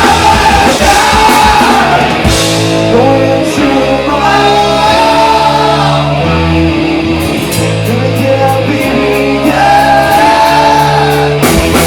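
Punk rock band playing loudly live, a singer holding long vocal lines over bass, guitar and drums.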